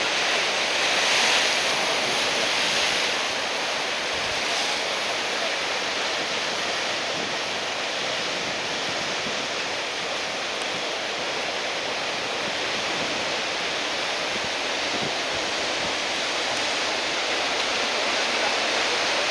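Ocean surf: a steady wash of large breaking waves from a typhoon swell, a little stronger in the first few seconds.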